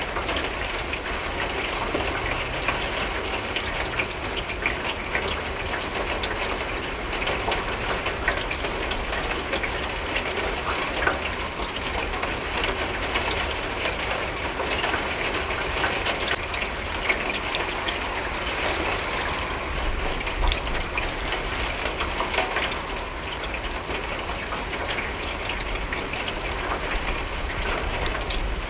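Steady rain with many individual drops ticking against a window pane, over a constant low rumble.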